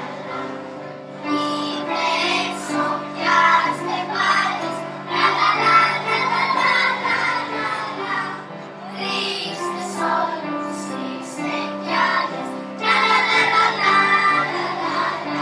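A group of children singing together over an instrumental accompaniment, in phrases with short breaks between them.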